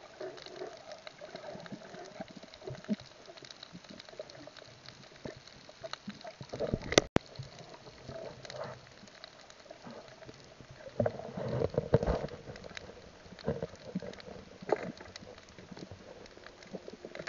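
Underwater ambience heard through a camera housing: a constant faint crackle of small clicks with gurgling water. Louder bubbling and knocking bursts come about six to seven seconds in and again around eleven to twelve seconds, and there is one sharp click near seven seconds.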